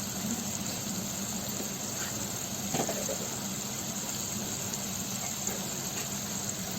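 Tomato curry simmering in a pan on a gas stove: a steady hiss over a low hum, with a couple of faint knocks about two and three seconds in.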